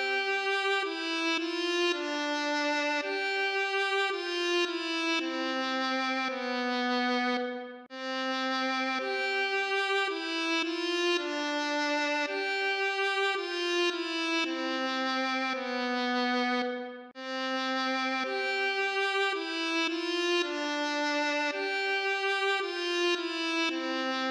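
A solo melody on a violin-like bowed instrument, one held note at a time. The same phrase of about nine seconds plays over and over as a loop, dipping briefly between repeats.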